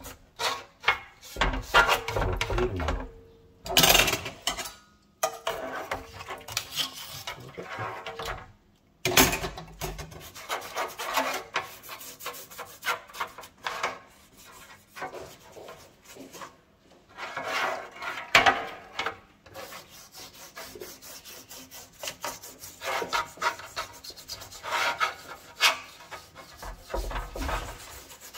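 Brush scrubbing the greasy metal mesh of a range hood filter in quick, irregular strokes, with a few short pauses.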